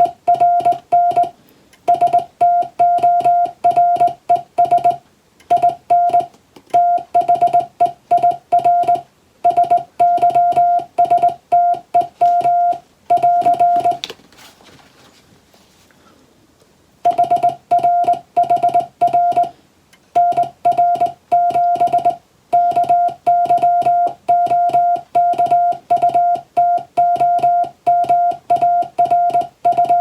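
Morse code practice tone sending English-letter code: a single steady beep keyed on and off in fast dots and dashes, with letter and word gaps. The sending breaks off for about three seconds midway, leaving only a faint hiss, then resumes.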